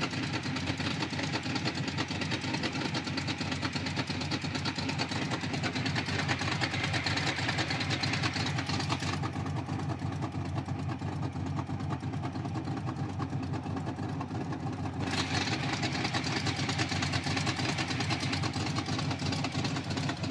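Engine with a performance camshaft idling with a choppy, loping beat.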